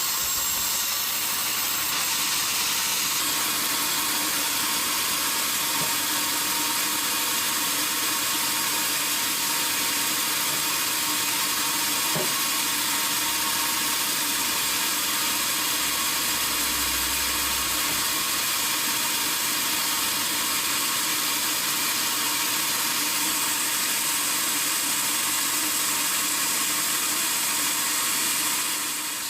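Sawmill saw running steadily: a continuous, even hiss with most of its sound in the high range.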